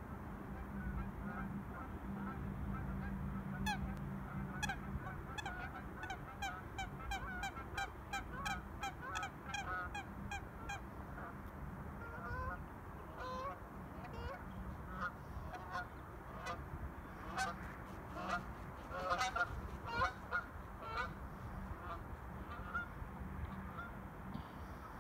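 Water birds calling on the lake: a rapid run of repeated calls, about four a second, for several seconds, then scattered calls, the loudest about three quarters of the way through.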